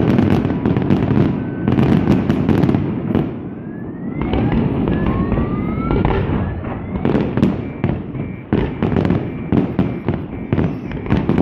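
Fireworks display: a dense run of cracks and booms over a low rumble. A few rising whistles of shells come partway through.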